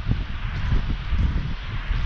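Wind buffeting the camera microphone: an uneven low rumble under a steady hiss.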